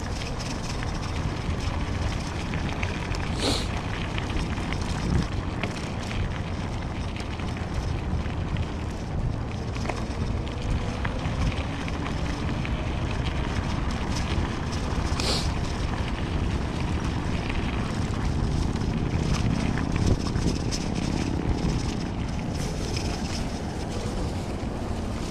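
Wind buffeting the microphone and tyres rolling over a dirt and gravel path as an electric bike is ridden, a steady low rumble with a couple of sharp clicks, a few seconds in and about halfway through.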